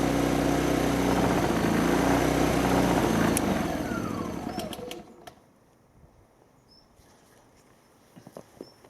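Hyundai EFI2500SEI inverter generator's small petrol engine running steadily, then switched off with a click about three and a half seconds in. Its pitch falls as it winds down to a stop about five seconds in, followed by a few faint clicks.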